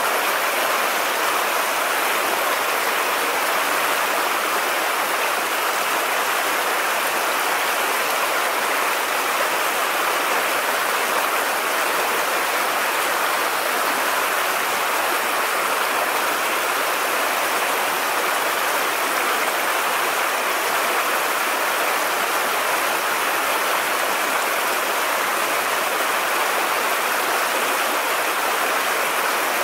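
River water running steadily over the shallows, an even, unbroken rush with no single splashes standing out.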